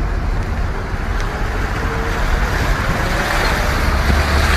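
A car driving through a flooded street, its side pushing through the water: a rushing, splashing wash that grows louder toward the end, over a low rumble.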